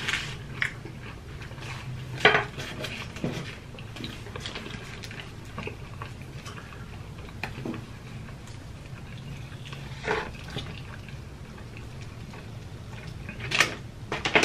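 Eating sounds at close range: chewing and mouth sounds, with a few sharp clicks and knocks as food and containers are handled on the table, over a low steady hum.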